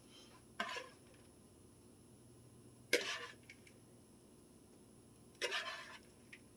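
Three short scraping, rustling sounds, about two and a half seconds apart: a hand scooping dry breadcrumb topping out of a plastic mixing bowl and sprinkling it over a casserole.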